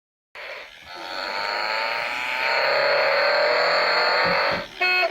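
An engine-like whirring that grows louder, its pitch slowly falling. Short electronic musical beeps start right at the end.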